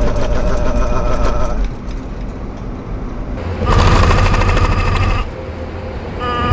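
Car tyres drumming over closely spaced raised yellow rumble strips, a rapid buzzing rattle with a steady hum that shakes the whole car. It comes in three spells, one at the start, one about halfway through and one near the end, with quieter road noise between the sets of strips.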